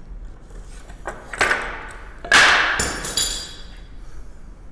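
Clamps being released from a freshly bent sheet-metal piece on a plywood bench: a clatter about a second in, then a louder knock and rattle about two seconds in that ends in a brief metallic ring.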